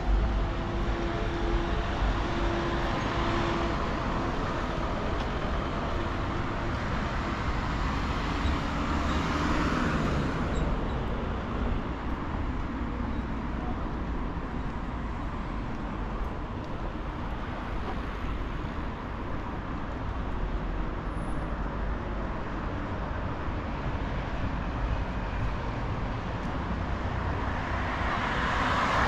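Steady city street traffic noise. One vehicle passes about nine seconds in, and another, louder, passes near the end.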